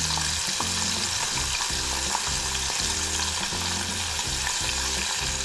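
Tempura-battered squid rings deep-frying in hot oil in a pot, sizzling steadily as chopsticks turn them.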